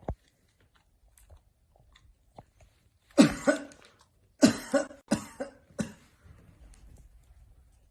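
A man coughing: a run of about five coughs, the first two close together about three seconds in and the rest following over the next three seconds. A single short click right at the start.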